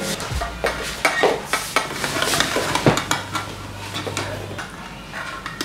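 A metal straw stirring and clinking against a glass mason jar of thick smoothie: a run of irregular clinks and scrapes.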